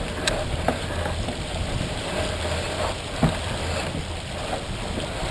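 Water hissing and rushing along the hull of a Columbia 30 sailboat under way, with a low rumble of wind on the microphone and a few sharp knocks, the loudest about three seconds in.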